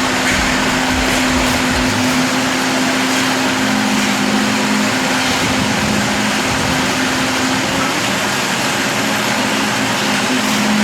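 A machine's engine running steadily, a low hum under loud rushing noise.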